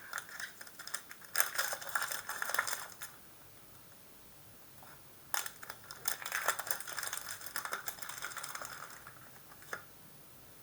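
Pokémon card booster pack wrapper and trading cards being handled, crinkling and rustling. It comes in two stretches of about three seconds each, with a quiet gap between and a single click near the end.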